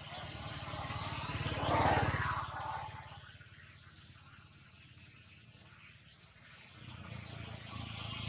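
A motor vehicle's engine, heard as a low pulsing hum that swells and fades about two seconds in, then rises again near the end, over a faint steady high-pitched insect buzz.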